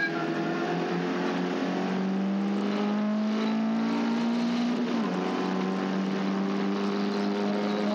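Caterham race car engine heard onboard, pulling steadily up through the revs. An upshift about five seconds in drops the pitch, then it climbs again, over a rush of wind and road noise.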